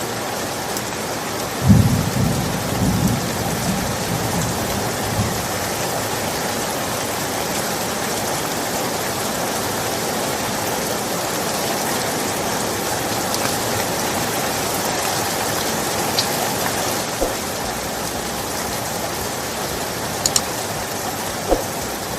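Steady rain falling, with a low rumble of thunder about two seconds in that fades away over a few seconds. A few short sharp clicks near the end.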